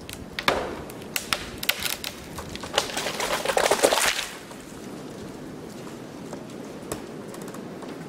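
A dead tree snapping and falling: a few sharp cracks as the trunk gives way, then a loud crash of the trunk and branches coming down into the snow between about three and four seconds in. The wood is rotten at the top.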